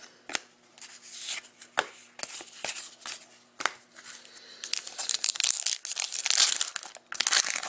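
A foil pack of 2013-14 Upper Deck SP Authentic hockey cards being torn open by hand and mouth: a few light clicks and rustles of card handling, then dense crinkling and tearing of the wrapper from about halfway through.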